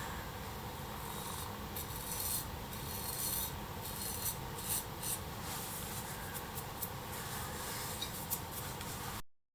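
A vintage axe head being sharpened by hand: repeated short scraping strokes of steel against the sharpening tool, until the sound cuts off suddenly near the end.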